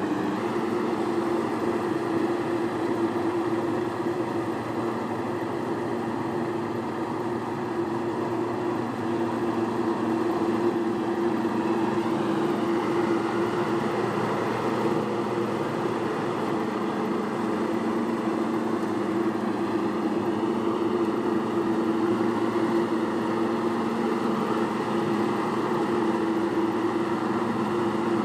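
A farm machine's engine running steadily at a constant speed, with a steady hum throughout.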